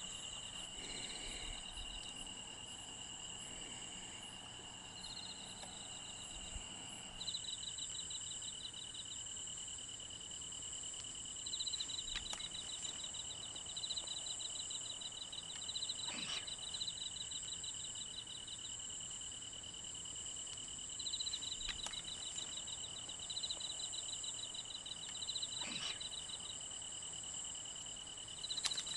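Insects calling: two steady high-pitched trills with bouts of rapid pulsed chirping that start and stop every few seconds, and a few faint ticks.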